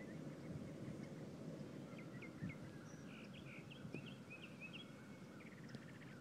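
Faint birds chirping in short, quick calls, busiest in the middle, over a low steady outdoor rumble. A soft thump comes about two and a half seconds in.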